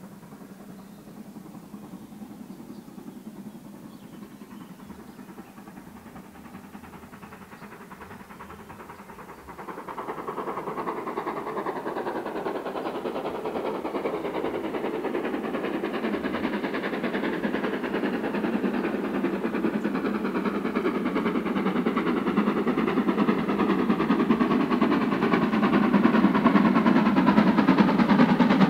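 GWR Manor class 4-6-0 steam locomotive 7812 'Erlestoke Manor' running along the line towards the listener with its carriages. It is faint at first, gets markedly louder about ten seconds in, and keeps growing louder as it approaches.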